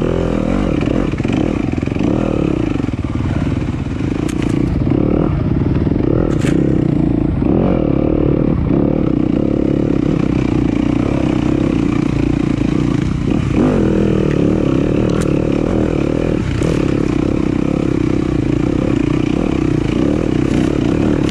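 Single-cylinder Yamaha WR250 enduro bike's engine running at fairly steady revs on a rocky trail, dipping briefly about two-thirds through. A few sharp knocks and some clatter come from the bike going over rocks.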